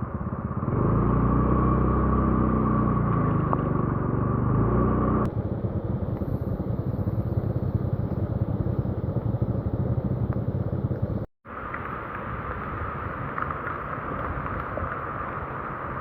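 A motor vehicle's engine running on the move, its pitch rising and then falling over the first few seconds, over a steady rushing road and wind noise. The sound drops out for a moment a little after the middle and comes back.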